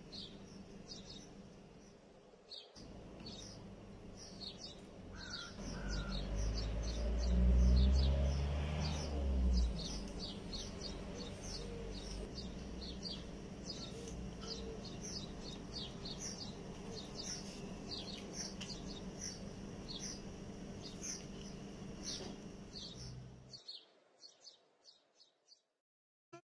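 Birds chirping in quick, short, repeated calls over a low rumble that swells about six to ten seconds in; both drop away near the end.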